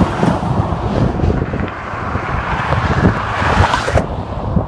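Wind rumbling on the microphone over highway traffic going by, with no truck horn sounding.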